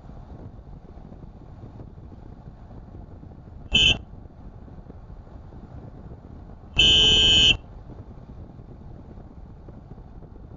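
Car horn sounding twice, a short toot and then a longer blast of under a second, over steady road and engine noise of a car driving.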